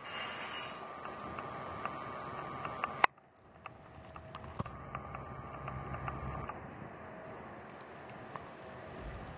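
Wood fire burning in a fireplace, the logs crackling and popping irregularly over a soft steady hiss, with a brief hiss near the start and a sharp click about three seconds in.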